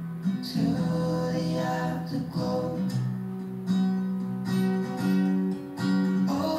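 Music from a radio: a pop song led by strummed acoustic guitar.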